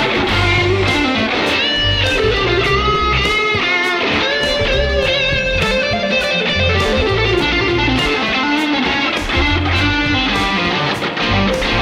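Electric guitar played through a UAFX Enigmatic overdrive pedal: a melodic single-note line with bent notes, over a low bass line and regular percussive hits.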